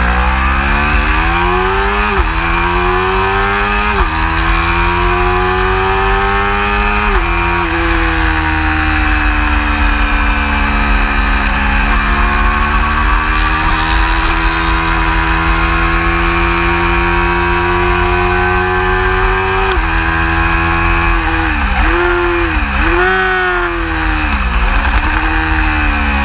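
Lightweight race motorcycle engine pulling away from the start at full throttle. Its pitch climbs and drops sharply with three quick upshifts in the first seven seconds, then holds high. About twenty seconds in it backs off, with a few quick dips in pitch as it downshifts through a corner, before it accelerates again.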